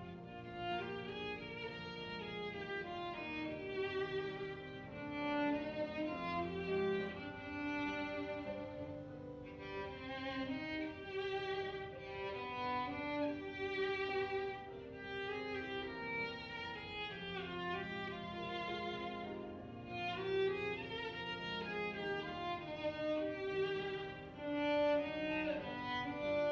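Instrumental music: a slow melody of sustained bowed-string notes, led by violin, over a lower accompaniment.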